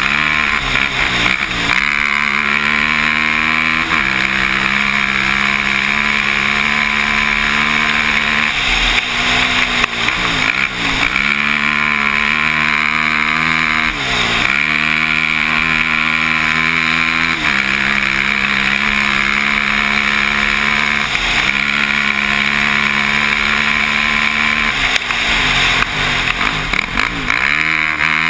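Can-Am ATV engine running hard at speed on a dirt track. Its pitch drops and climbs back several times as the throttle is eased off and reopened.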